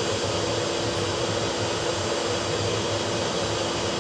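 A machine motor running steadily with rushing air and a constant hum, unchanging throughout.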